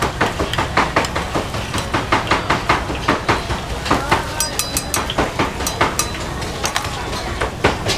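Rapid, regular knocks of a kitchen utensil on a hard surface, about three or four a second, over a steady low rumble. There is a brief high metallic ring about four and a half seconds in.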